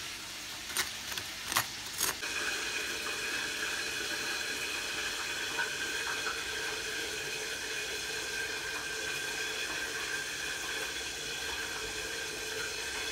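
Three light clicks, then a steady hiss with a few faint steady whining tones.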